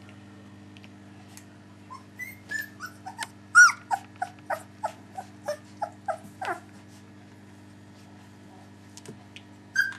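Three-week-old Dalmatian puppy whimpering: a quick run of short, high, falling squeaks, about three a second, starting about two seconds in and stopping after six seconds, with two more near the end. A steady low hum sits underneath.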